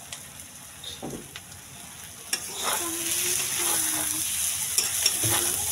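Metal spatula stirring and scraping boiled eggs, onion and tomato as they fry in oil in a metal kadhai, over a steady sizzle. The stirring gets louder about two seconds in.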